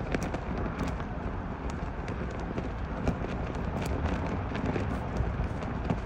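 Strong wind gusting over the microphone as a steady low rumble, with a large flag flapping hard and snapping in irregular sharp cracks, several times a second at moments.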